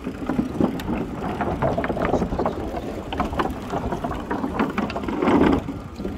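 Bicycle riding over a wooden plank boardwalk: a dense run of small knocks and rattles as the wheels cross the deck boards, over a low wind rumble on the microphone.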